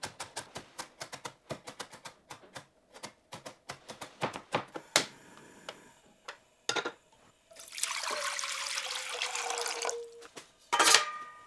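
Kitchen knife chopping rapidly on a cutting board, about five strokes a second, slowing to scattered knocks. Then a tap runs for about two and a half seconds, followed by a short, loud burst of noise near the end.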